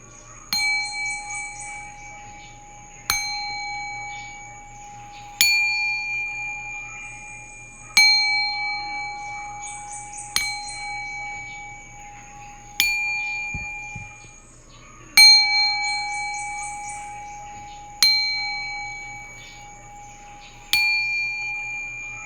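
A bell struck nine times at an even pace, about every two and a half seconds. Each strike rings on in a clear, sustained tone of the same pitch and slowly fades. A faint high tinkling shows over a few of the strikes.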